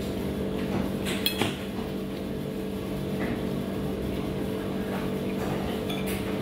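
Steady low restaurant hum, with a couple of sharp crockery clinks about a second in and a faint tick or two later.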